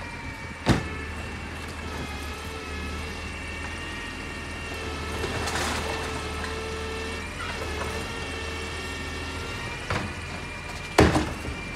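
Labrie Minimax automated side loader garbage truck idling while its hydraulic arm whines steadily, grabbing, lifting and tipping a recycling cart. The whine dips in pitch about halfway through. There is a sharp bang under a second in and a louder bang near the end.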